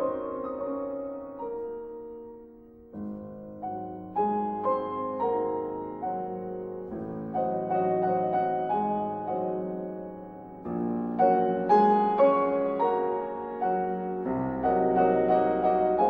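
Background piano music with slow, struck chords and melody notes that ring and die away; it thins out to a lull about three seconds in before a new phrase starts.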